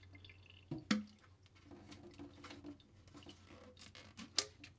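A few faint handling knocks and clicks, sharpest about a second in and again near the end, over a low steady hum.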